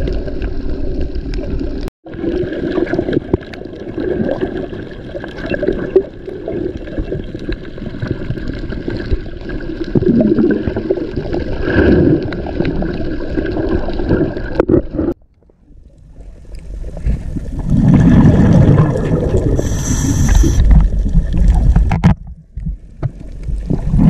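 Underwater sea sound picked up by a submerged camera: muffled sloshing and gurgling of water. It breaks off briefly about two seconds in, goes quiet for a moment past the middle, then comes back as louder low rumbling.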